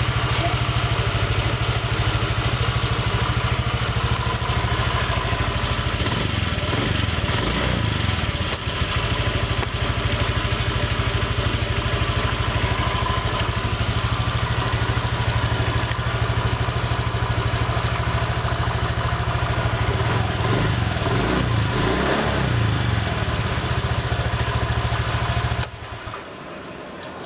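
Honda Vario 125 PGM-FI scooter's single-cylinder engine idling steadily. Its speed rises and falls twice, and it cuts off near the end. It runs on a new ignition coil and NGK spark plug, and the owner hears no trace of the idle "snore" that the model is known for, though it is a bit noisier than on the standard parts.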